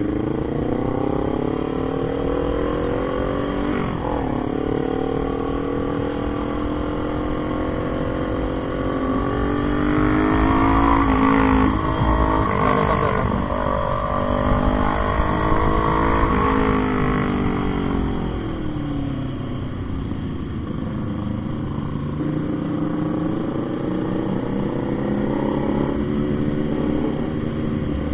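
Motorcycle engine running under way, its pitch climbing and dropping with throttle and gear changes. It is loudest and highest about ten to seventeen seconds in, then settles lower and steadier, over a low wind rumble.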